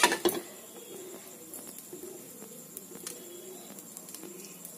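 A metal spatula clinks against a kadai of hot oil at the very start. After that it is quiet apart from a faint, low bird cooing that comes and goes.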